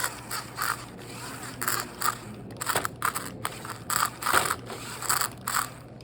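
Off-road RC car crawling over an obstacle in short stop-start bursts, its tyres and chassis scraping and crunching as the suspension flexes: a run of irregular short scraping bursts.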